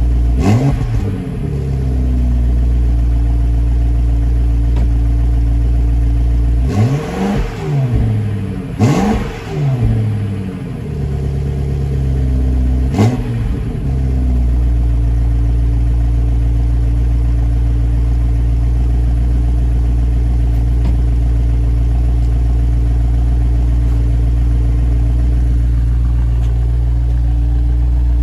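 BMW X6 M Competition's 4.4-litre twin-turbo V8 idling, blipped up to quick revs right at the start, a few times in a row from about 7 to 10 seconds in and once more about 13 seconds in. After that it settles to a steady idle.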